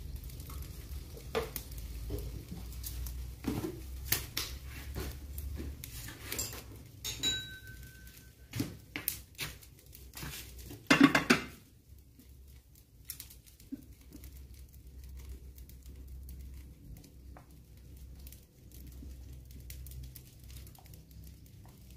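Kitchenware being handled: scattered clinks, knocks and rustles of a frying pan, oil bottle, bowl and tongs, with a short ringing clink about seven seconds in and the loudest flurry of knocks about eleven seconds in.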